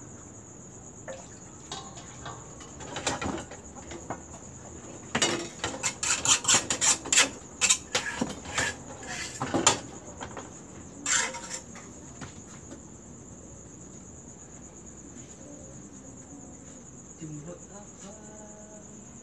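Metal cookware clattering: a ladle, batter bowl and small frying pans knocking and clinking on the stove, in a dense run of sharp knocks about five to ten seconds in and once more a second later. A steady high cricket chirping goes on underneath.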